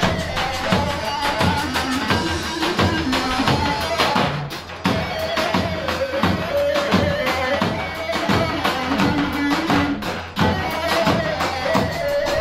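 Davul and zurna playing halay dance music: a shrill reed-pipe melody wavers over steady, regular beats of the big bass drum.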